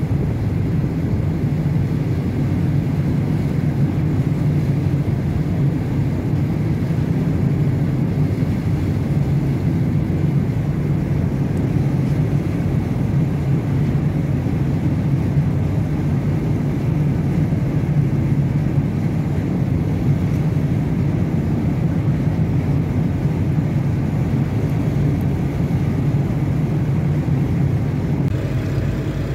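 Steady low engine rumble heard from aboard a moving boat, with wind and water noise over it.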